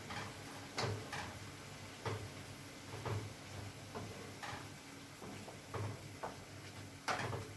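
Scattered light knocks and clicks of cookware and utensils being handled in the kitchen, irregular, with a quick cluster near the end.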